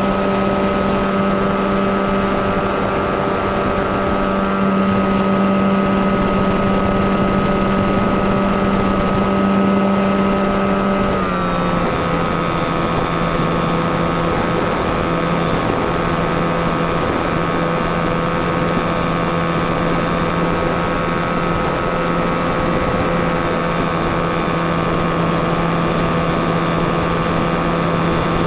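Skywalker FPV model plane's electric motor and propeller, heard from the onboard camera, droning steadily over a hiss. Its pitch steps down slightly about eleven seconds in.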